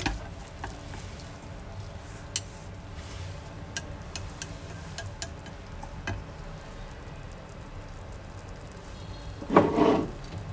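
Wooden chopsticks stirring shelled river clams in a small pot, with scattered clicks against the pot over a low steady hum and faint crackle as the pot heats up. There is a louder clatter near the end.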